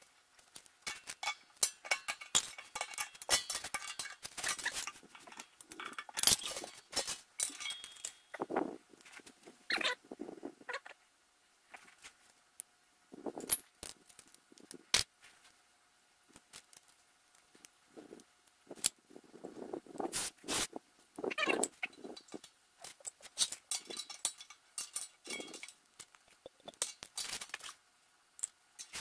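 Small brass air fittings and a pressure gauge being handled and fitted by hand: irregular clinks and light metal rattles, scattered through with short bursts of rustling and handling noise.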